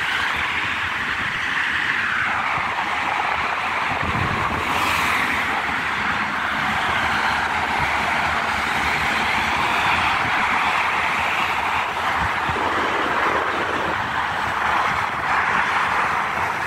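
Continuous highway traffic noise from cars and trucks passing below at speed, a steady rush of tyres and engines that swells and fades as vehicles go by, with one louder pass about five seconds in.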